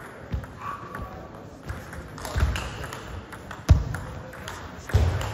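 Table tennis rally: the plastic ball clicking sharply off the bats and the table at irregular intervals, about one stroke a second, with one louder knock late on.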